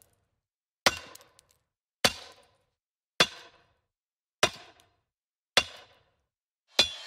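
A sharp percussive hit sound effect, like a knock or chop, repeated six times at a steady pace of about one every 1.2 seconds. Each hit has a short ringing tail, with silence between the hits.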